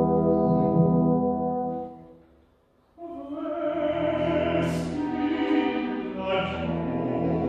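Orchestra holding a sustained low chord with brass, which dies away about two seconds in. After a brief near-silent pause, strings and an operatic tenor come in together at about three seconds.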